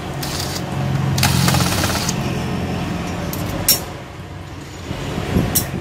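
Hand screwdriver turning out a small screw from a laptop's motherboard, with scratchy scraping and fine rapid ticking twice in the first two seconds. Two sharp clicks follow, near the middle and near the end, over a steady background hum.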